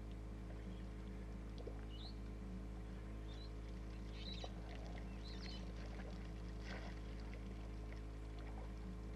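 A steady low mechanical hum with several short, high bird chirps scattered over it.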